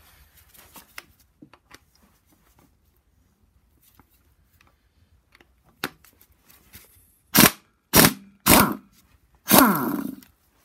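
Impact wrench on a crankshaft pulley bolt: light clicks of the socket being fitted, then three short blips about half a second apart and a longer burst near the end as the bolt is worked loose.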